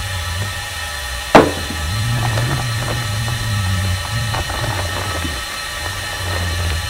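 A vacuum unit drawing the air out of a pipe-repair packer runs with a steady whine and a low hum. A sharp knock comes about a second and a half in, and plastic sheeting crinkles as the wrapped packer is rolled by hand.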